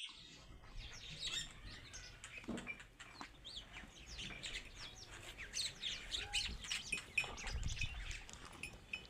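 Many small birds chirping together, a dense stream of short, quick, high chirps.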